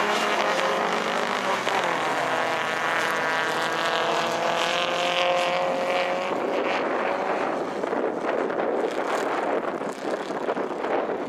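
Engines of several rear-wheel-drive classic rally cars racing on an ice track, revving hard, their pitch rising and falling as they accelerate and shift.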